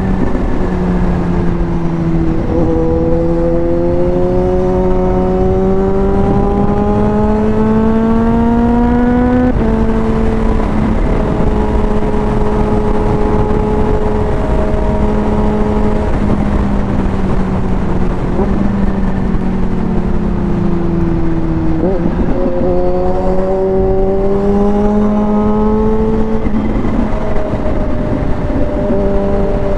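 Kawasaki Z H2 motorcycle's supercharged inline-four engine running at highway speed under wind and road noise. The revs climb steadily, then fall suddenly at an upshift; later they ease down, jump at a downshift and climb again before another shift near the end.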